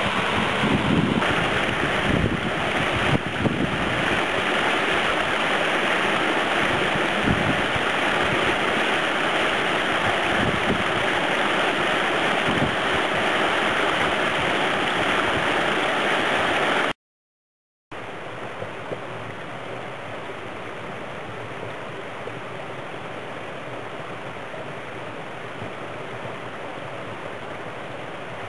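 Mountain stream water rushing and splashing down a small rock cascade edged with ice, a steady full rush. About two-thirds of the way through the sound cuts out for a second and comes back as a softer, even stream rush.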